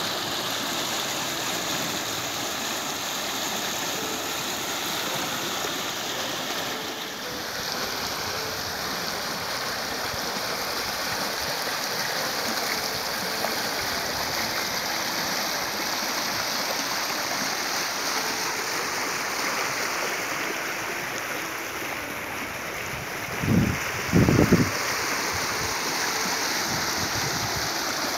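Muddy floodwater rushing steadily through a breached earth embankment, a continuous churning flow. Near the end, a few short low thuds sound over it.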